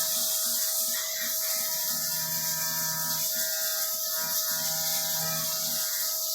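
CNC milling machine cutting 7075 aluminium: a steady spindle whine over a high hiss, with a lower cutting sound that swells and fades every second or so.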